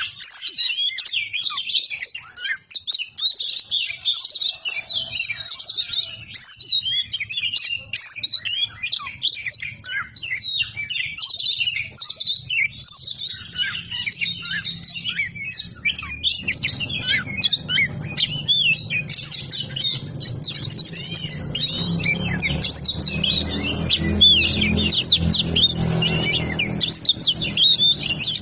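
Oriental magpie-robin (kacer) singing a continuous, fast, choppy run of varied chirps and whistles. A low hum comes in underneath about halfway through.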